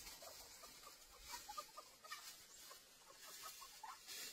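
Faint, scattered short chirps and clucks of birds over a steady high hiss.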